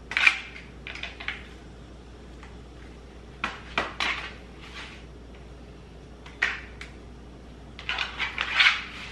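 Paper towel crinkling and dabbing as raw catfish fillets are patted dry, with light knocks of the fish against a plastic tray, in several short bursts.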